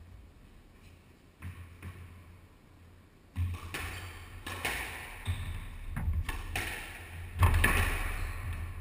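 Squash rally: the rubber squash ball cracks sharply off rackets and the court walls, hitting every half second to a second from about three seconds in. One softer knock comes a little earlier, while play is stopped.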